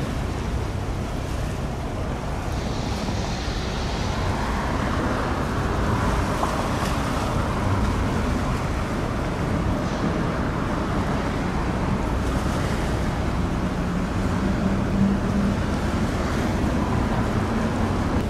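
Choppy seawater splashing and wind buffeting the microphone over a steady low engine rumble, with a faint steady hum in the second half.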